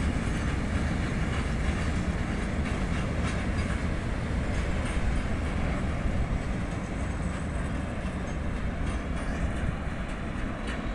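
Freight train of loaded petrol tank wagons rolling past on the rails, a steady wheel-on-rail noise that gradually gets quieter toward the end.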